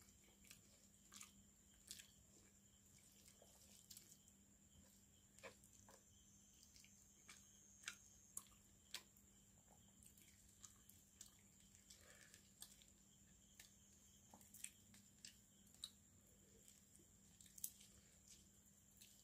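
Faint, irregular wet clicks and squishes of eating by hand: fingers working rice into fish curry, and chewing.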